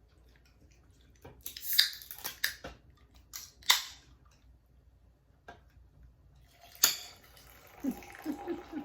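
Sharp clicks and snaps from a fizzy Limonata lemonade drink being worked open, a few of them with a short fizzing hiss.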